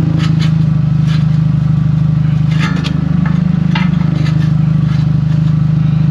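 The PT Cruiser's Chrysler 2.4-litre four-cylinder idling steadily with a fine pulsing, its muffler cut off, with several short metallic knocks and scrapes as a loose muffler is handled against the exhaust pipe.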